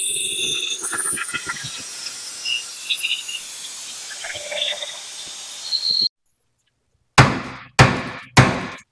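Angle grinder with a cutoff wheel cutting into a rusted steel spring-mount bracket on a Jeep TJ frame, its whine getting quieter over the first six seconds. Near the end come three sharp hammer blows on the bracket, about half a second apart.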